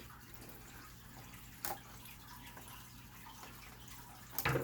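Quiet room tone with a faint steady hum, broken by a single sharp click about a second and a half in and a short knock near the end: small parts being handled while a laptop is put back together.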